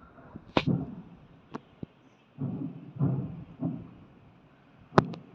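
Aerial fireworks exploding: a mix of sharp cracks and dull low booms, with two quick cracks in a row near the end. They are not that loud.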